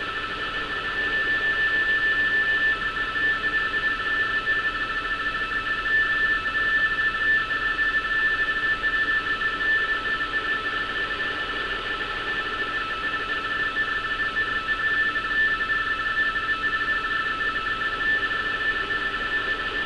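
Radioteletype (RTTY) signal from a NASA Marine HF3 shortwave receiver's speaker. It is a continuous warble between two steady tones about 450 Hz apart, the mark and space of the frequency-shift keying, over a hiss of shortwave noise.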